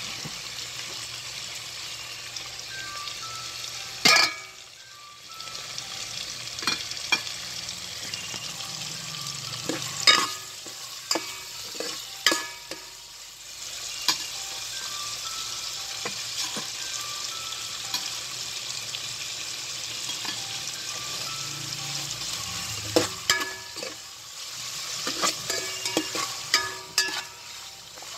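Chicken pieces frying in hot oil in a metal pot, a steady sizzle, with a spatula scraping and knocking against the pot as it is stirred, the knocks busiest about a third of the way in and again near the end.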